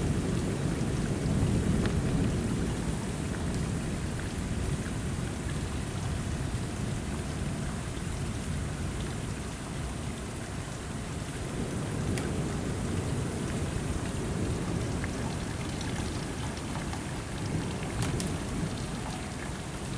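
Heavy rain pouring steadily during a thunderstorm, with a low rumble of thunder. The rumble is strongest in the first couple of seconds, dies down, and swells again about twelve seconds in.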